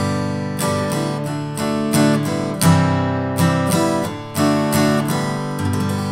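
Outro music of strummed guitar chords, struck every half second to a second, the last chord left ringing near the end.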